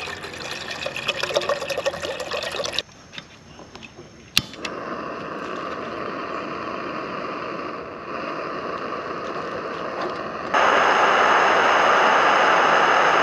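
Water pouring into a Jetboil stove's cooking cup. A single sharp click about four seconds in, then the Jetboil gas burner hissing steadily on its isobutane-propane canister, stepping up in loudness near the end.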